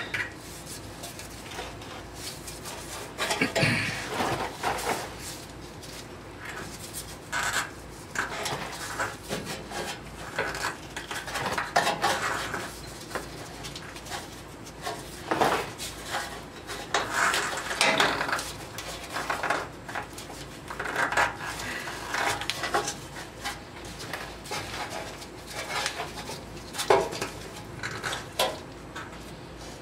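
Gloved hands working rubber exhaust hangers onto the steel hanger rods of a 1994–97 Honda Accord's exhaust pipe: irregular short clinks, knocks and rubbing of metal and rubber.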